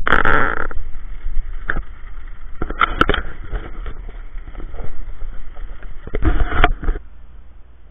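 Wind buffeting a moving camera's microphone over the rumble of inline skate wheels rolling on asphalt, with louder gusts near the start, around three seconds in and again about six seconds in.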